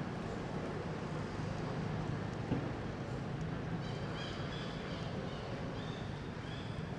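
Outdoor ambience: a steady low hum, joined about four seconds in by a series of short, high chirps.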